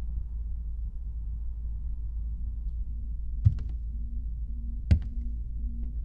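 Low, droning horror-film score. Past halfway a faint pulsing hum comes in, with two sharp heavy thuds about a second and a half apart, like a slow heartbeat.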